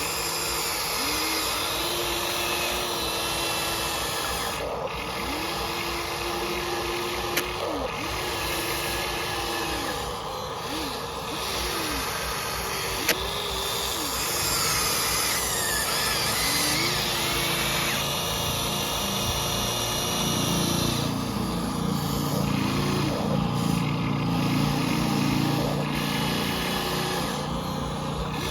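Small electric motors of radio-controlled construction models whining as they start, stop and change speed over and over, with a denser, louder hum from about two-thirds of the way in.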